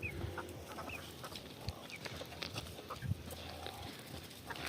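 Chickens clucking, with short, high chirps and scattered small clicks and knocks.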